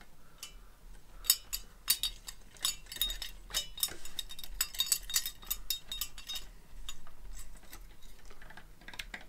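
Metal parts of a Fire Maple Fixed Star X2 backpacking gas stove clicking and clinking as the stove is turned and screwed onto a gas cartridge: a quick run of light metallic clicks, thinning out after about six seconds.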